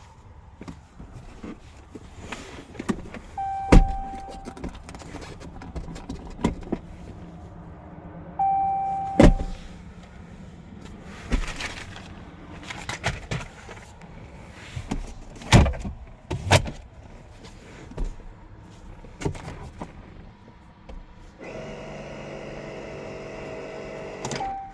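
Clicks and clunks of parts being worked inside the 2015 Dodge Ram 1500's cab, with two short steady tones, each cut off by a loud clunk, and a steady electric motor hum for about three seconds near the end.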